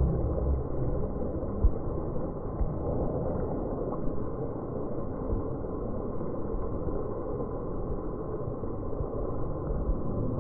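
Steady noise of heavy rain pouring down, with a brief click under two seconds in.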